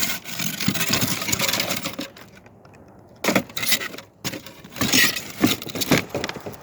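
Small pieces of scrap metal clattering and clinking as they are handled and dropped together. There are two rounds: about two seconds of continuous jangling, a short pause, then a run of separate clanks and rattles.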